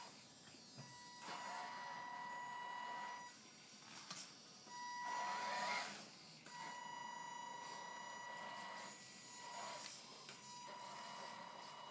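Electric drive motor and gearbox of an RC scale Land Rover Defender 110 crawler whining as it drives on and off while towing a boat trailer: a steady high whine cuts in and out several times, with a whir of gears and tyres that is loudest about halfway through.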